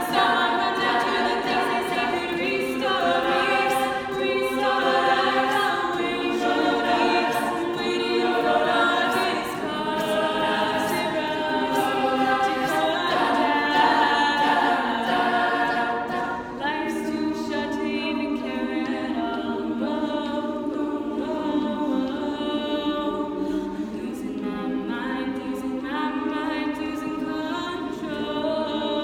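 A cappella vocal group singing in close harmony, a lead voice over sustained backing voices, with no instruments. The chords and texture change a little over halfway through.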